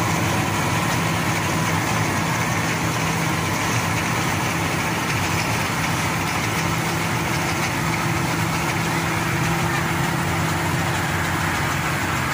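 Maxxi Bimo 102 rice combine harvester running steadily, its engine and machinery giving an even, continuous hum.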